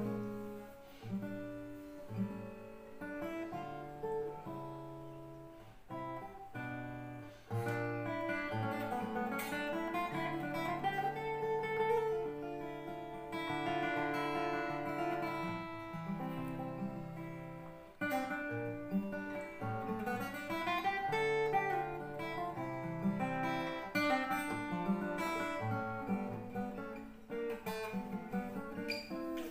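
Handmade OM-size acoustic guitar of Tasmanian tiger myrtle, played fingerstyle in a solo improvisation: picked melody notes over bass notes and chords, growing fuller and louder about a quarter of the way in.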